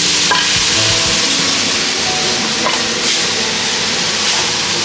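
Chopped onion, garlic, tomato and chillies sizzling in hot oil in a pan and being stirred, a steady loud frying hiss.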